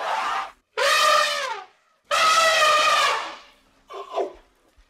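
Elephant trumpeting: three loud calls, each longer than the last, then a short, fainter call that falls in pitch.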